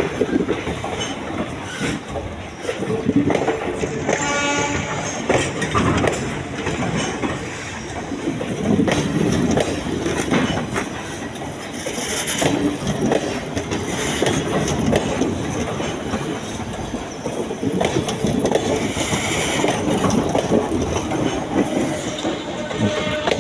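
A train running along the track, its wheels clattering irregularly over the rails. A brief horn blast sounds about four seconds in.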